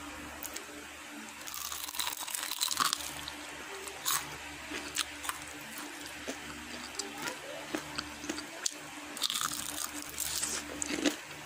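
Intermittent crinkling and crunching sounds, bunched in a few short flurries, over a faint steady hum.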